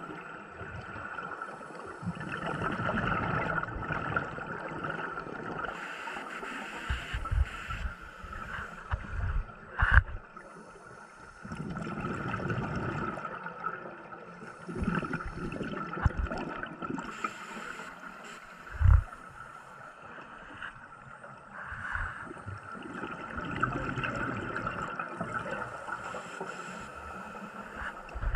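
Underwater breathing from a scuba diver: a steady regulator hiss alternating every few seconds with bubbly rumbles of exhaled air, heard through a camera housing. Two sharp knocks stand out, about ten seconds in and again just before the twenty-second mark.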